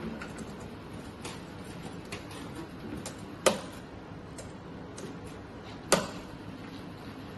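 Sharp clicks and knocks of handle cable connectors being pushed into the sockets on the back of an EMS body-sculpting machine and locked, with two loud snaps about two and a half seconds apart and several lighter clicks between.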